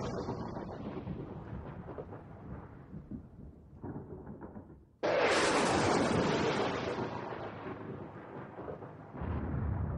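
Deep, thunder-like booming rumbles, each dying away over a few seconds; a new one starts suddenly about five seconds in and another just before the end.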